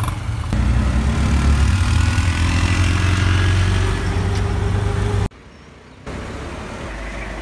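Auto-rickshaw (tuk-tuk) engine running loud as it drives through traffic, heard from inside its open cabin, its pitch rising slightly as it gathers speed. The engine sound cuts off abruptly about five seconds in, and quieter street noise follows.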